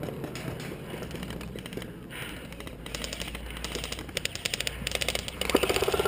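Airsoft guns firing on full auto: fast rattling bursts of clicks, about twenty a second, starting about three seconds in and getting louder near the end.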